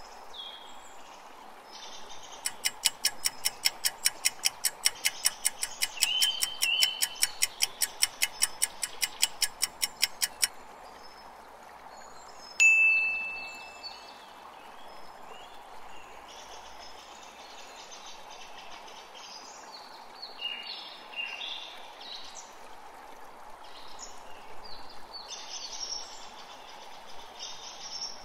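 Quiz countdown timer ticking quickly, several ticks a second, for about eight seconds. About two seconds after it stops, a single bell-like ding marks the answer reveal. Underneath runs a steady nature-ambience bed of running water and chirping birds.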